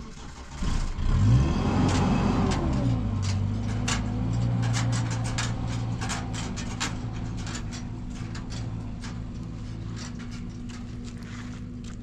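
A motor vehicle engine revs up and back down about a second in, then settles into a steady idle, with scattered rattling clicks over it.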